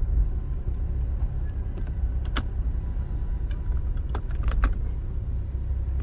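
Car driving, heard from inside the cabin: a steady low rumble of engine and road. A sharp click or rattle comes about two seconds in, and a quick cluster of three or four more comes a little after four seconds.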